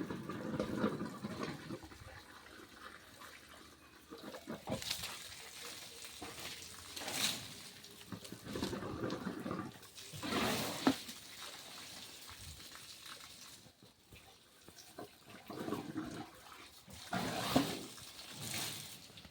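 An elephant bathing itself, splashing water over its body in irregular bursts every few seconds.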